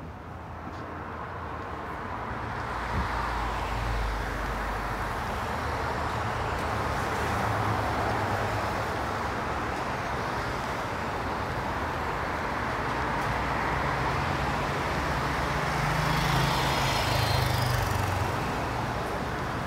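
Cars driving past on a multi-lane street: a steady wash of tyre and engine noise that swells over the first few seconds and grows loudest again near the end, as an SUV and a sedan go by close to the microphone.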